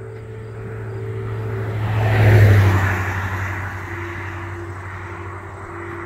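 A car passing by close on the road: its engine and tyre noise swell to a peak about two and a half seconds in, then fade. A steady low hum runs underneath.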